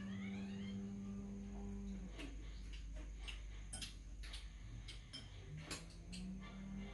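Metal spoons and chopsticks clinking against stainless-steel bowls and a metal serving tray while eating: a string of light, irregular clicks through the middle. A steady low tone underneath stops about two seconds in.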